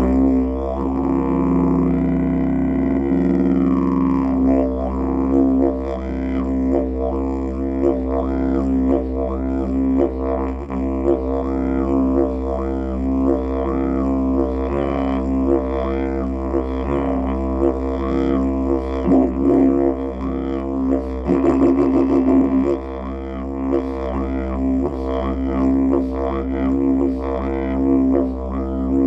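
Wild cherry wood didgeridoo played with a continuous low drone that begins abruptly after a short pause. The overtones are swept up and down in a repeating rhythm about once a second.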